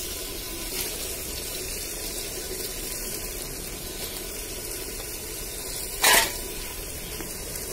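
Washed mutton pieces sizzling as they hit hot oil and masala in a pot over a wood fire: a steady hiss, with one short, loud burst about six seconds in.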